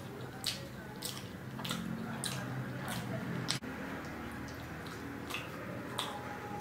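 Close-miked eating of paneer in curry sauce: wet chewing with a series of sharp, irregular lip smacks and mouth clicks.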